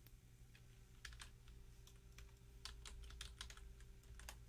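Faint typing on a computer keyboard: a dozen or so irregular key clicks, starting about a second in and stopping near the end.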